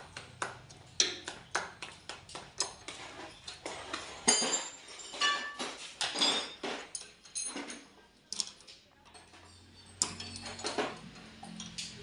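Steel hand tools and engine parts clinking and knocking against each other in an irregular run of sharp strikes, a few ringing briefly, as a Swaraj 735 FE tractor engine is being dismantled. The loudest knock comes about four seconds in, and the clinking thins out for a couple of seconds near the end.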